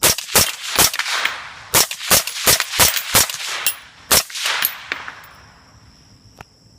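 Semi-automatic firearm fired about ten times in quick succession, at an uneven pace of two to three shots a second with a short pause after the first three.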